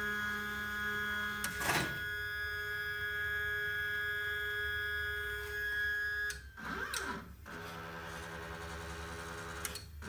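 Stepper motors of a home-built GRBL CNC router running its homing cycle: a steady whine as an axis drives toward its limit switch, with a single click a little under two seconds in. About six and a half seconds in, the pitch sweeps down and back up as the axis stops and backs off the switch, then settles into a new steady whine.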